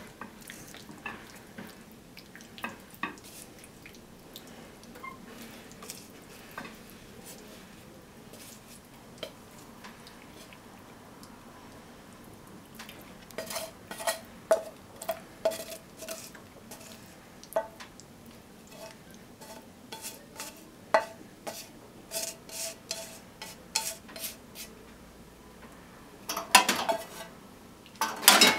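Kitchen utensils clinking and scraping against a frying pan and a ceramic bowl as a stir-fry is served out of the pan. Sparse soft clinks at first, then a quick run of light ringing taps from about halfway, with a louder clatter near the end.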